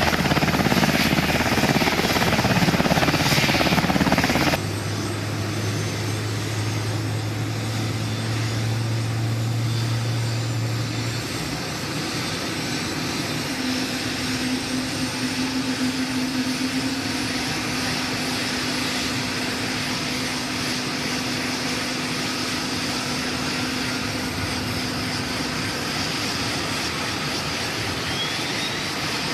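UH-60 Black Hawk helicopter running on the ground, its twin turboshaft engines and turning rotor giving a steady whine and rush. About four and a half seconds in the sound drops suddenly to a quieter steady run, with a low steady hum for several seconds and later a higher steady tone.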